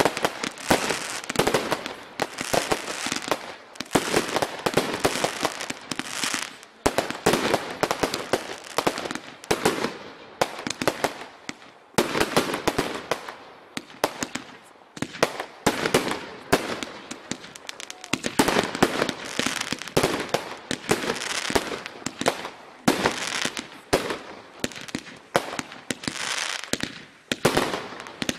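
Consumer barrage cakes of a fireworks display firing in rapid succession: a dense, almost unbroken stream of launch thumps, bangs and crackling bursts, with the sound swelling and easing every second or two.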